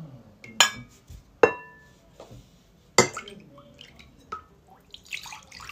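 A metal ladle clinks against a ceramic bowl three times, each clink ringing briefly, followed by a few lighter taps. Near the end comes a short trickle of liquid.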